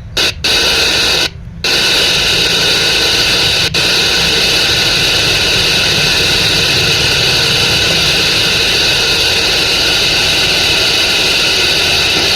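FM radio static hiss played loud through a small speaker driven by a 4440 IC amplifier, the sign that the newly fitted IC is working. The hiss cuts out briefly twice in the first two seconds, then runs steadily.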